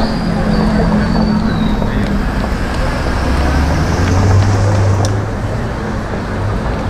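Busy city street traffic: car engines running and tyre noise, with a deeper engine note swelling as a vehicle passes about four seconds in.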